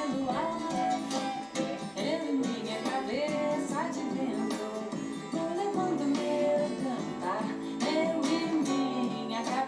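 Forró song playing: a melody with singing over plucked strings and steady percussion.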